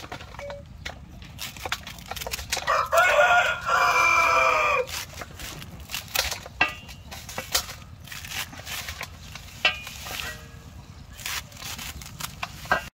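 A rooster crows once, a long call of about two seconds starting about two and a half seconds in, with a couple of short chicken calls later. Throughout, a kitchen knife makes repeated crisp clicks as it slices through bundled green vegetable stems held in the hand.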